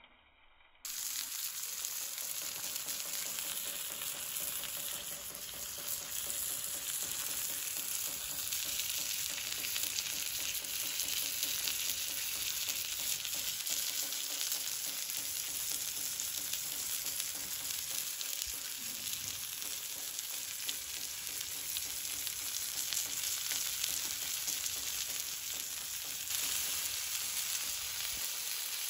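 New York strip steak sizzling on a hot Himalayan salt block, a steady frying hiss that starts suddenly about a second in.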